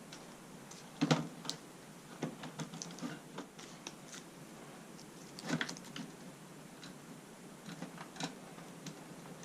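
Scattered light clicks and knocks of headlight parts and tools being handled, with two louder clattering knocks about a second in and about five and a half seconds in.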